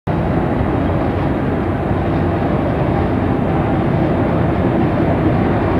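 British Rail Class 50 diesel locomotive's English Electric 16CSVT V16 engine idling, a steady, even running sound.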